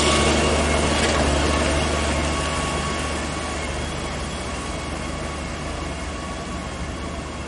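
Heavy truck running with a steady mechanical noise and a faint whine, fading gradually as it moves away.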